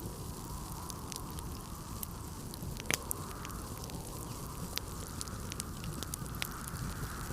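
Wood fire crackling in a fireplace, with scattered sharp pops and a louder pop about three seconds in, over the steady rumble and hiss of blizzard wind.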